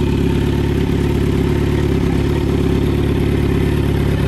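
2020 Kawasaki Z900's 948cc inline-four idling steadily in neutral through a full Akrapovič exhaust, just after start-up.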